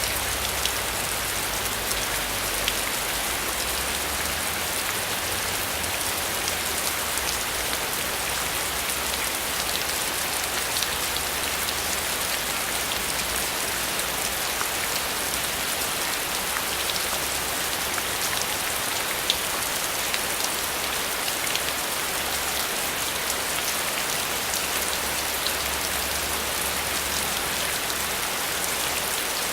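Heavy rain falling steadily, a dense even hiss with the sharp ticks of individual drops striking a surface.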